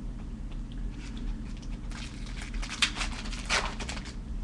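Foil trading-card pack wrapper crinkling and tearing open by hand. The crackles come in a quick flurry over the second half, loudest a little after the middle.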